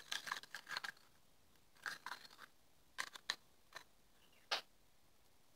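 Plastic spoon scraping and clicking against the sides of a small plastic cup while stirring a liquid: a few faint, short scrapes and taps, a sharper click near the end.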